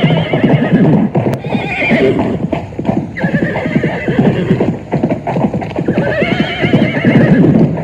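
Horse galloping, hooves drumming in a rapid continuous beat, while it neighs about four times in long quavering whinnies.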